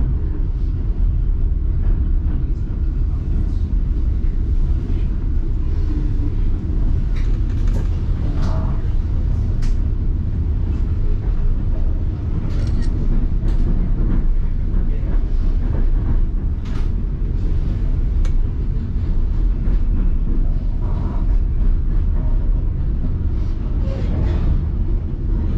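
Passenger train rumbling steadily along the track, heard from aboard, with scattered short clicks and knocks.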